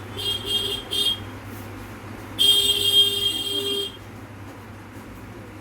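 Electronic buzzer beeping: two short beeps, then a longer beep of about a second and a half, over a steady low electrical hum.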